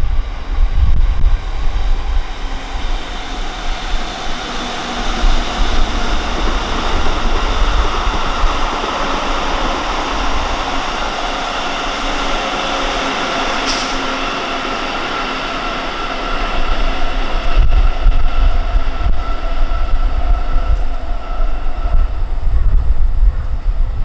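A delivery train of new Tokyo Metro cars hauled by an EF65 electric locomotive rolls past on the rails: a steady running noise with several held ringing tones from the wheels. It builds a few seconds in and fades near the end. Wind buffets the microphone at the start and the end.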